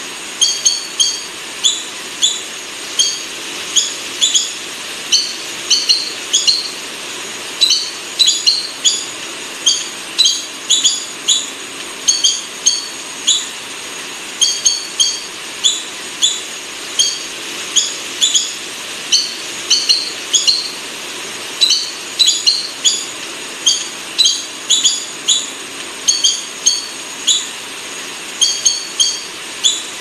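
Buff-banded rail calling: short, sharp, high-pitched notes, often in quick clusters of two or three, repeated over and over above a steady hiss.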